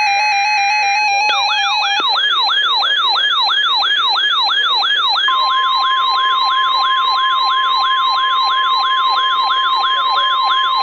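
Weather radio receivers sounding their alert. A stepped electronic beeping with a burst of data tones gives way, about a second in, to a rapid siren sweeping up and down about two and a half times a second. About five seconds in, the steady 1050 Hz NOAA warning alarm tone joins it.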